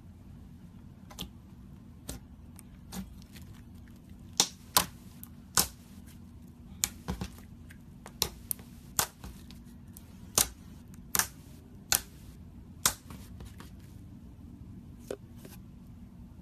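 Glittery clear slime being pressed and stretched by fingers, giving sharp, irregular clicks and pops as trapped air bursts, a few at first, then many in quick succession through the middle. A faint steady low hum runs underneath.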